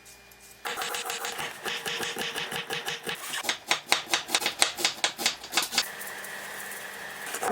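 Carrots being julienned: a rapid run of short cutting or shredding strokes that starts about a second in and settles into about four to five strokes a second in the middle, then eases into a softer, steadier scraping near the end.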